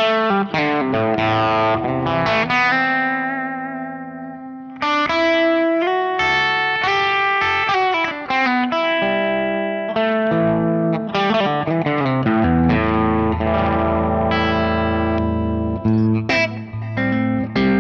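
Electric guitar with Dreamsongs Vintage '50s Telecaster pickups, played with an overdriven, crunchy tone: picked phrases and chords, with one chord left ringing and fading about three to four seconds in and a bent note near the middle.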